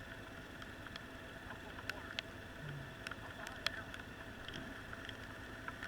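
Faint steady hum with a few fixed tones and scattered small clicks, like a running vehicle or machine heard at low level.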